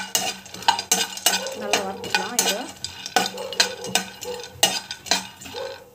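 A spatula stirring and scraping cashew pieces as they roast in a kadai: an irregular run of scrapes and clacks, about two to three a second.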